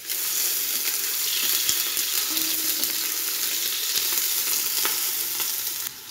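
Sliced onions sizzling in hot vegetable oil as a spatula stirs them around the pan. The sizzle starts suddenly and cuts off just before the end.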